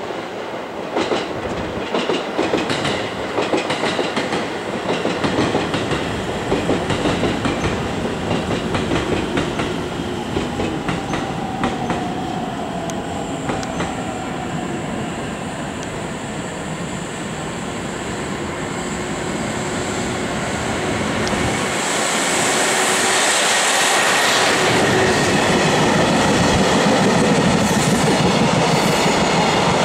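Freight train hauled by an EF210 electric locomotive passing through a station at speed: wheels clatter over the rail joints in a repeating rhythm. About two-thirds of the way in it turns into a louder, steady rolling rush as the empty container flatcars run close by.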